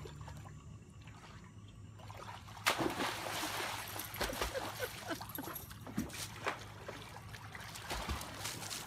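Water splashing and sloshing as a dog paddles through a small above-ground pool. The splashing starts about two and a half seconds in and runs on in irregular bursts.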